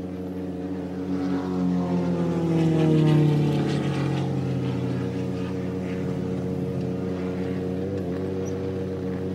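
John Deere 17D mini excavator's diesel engine running steadily as the machine moves, with a whine that slides down in pitch, loudest about three seconds in.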